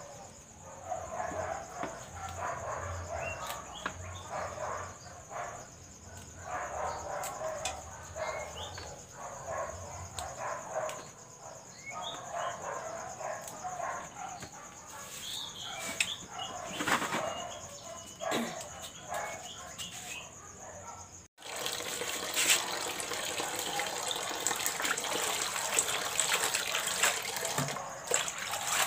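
Spinach leaves being swished and rubbed by hand in a pot of water: a steady splashing that starts abruptly about three-quarters of the way through. Before it, faint background voices and chicken clucks are heard while the leaves are picked.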